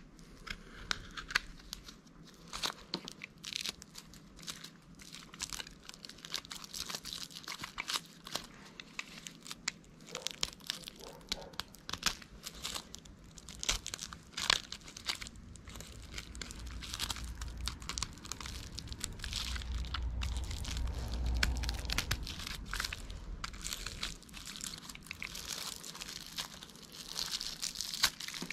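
Hand tools cutting and prying at a sewing machine's casing to get a cover off: a long run of irregular clicks, crackles and scrapes. A low rumble swells in the middle and fades again.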